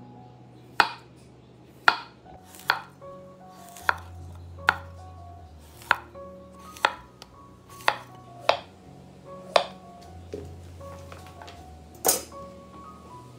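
A chef's knife slicing a zucchini into rounds on a wooden cutting board: about a dozen sharp chops, roughly one a second, the loudest near the end.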